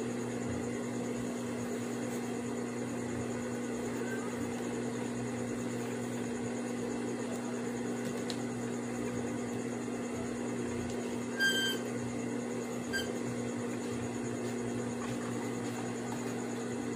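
Steady electric motor hum, as from a running fan or an idling sewing-machine motor. About eleven and a half seconds in comes one short high-pitched chirp, and a fainter one about a second and a half later.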